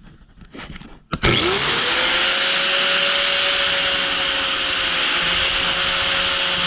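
Angle grinder spinning up about a second in and then running steadily at full speed with a high whine, grinding the steel tubing clean to prepare it for welding.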